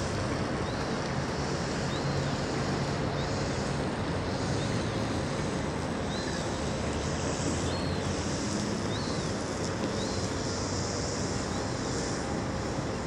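Steady rush of wind on the microphone from a moving boat, over the low hum of the boat's motor, with faint high chirps recurring every second or so.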